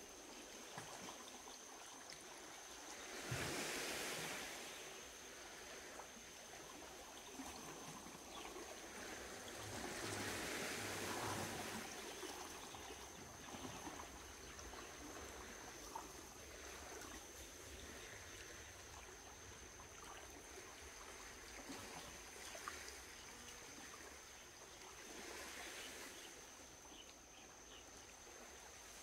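Faint ambient water noise, swelling louder about three seconds in, again around ten seconds and near the end, with a thin steady high tone underneath.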